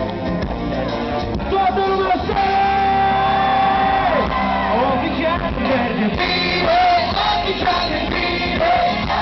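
Live band music with a male singer's voice amplified through a stage PA, heard from the audience. The singer holds one long note from about two to four seconds in.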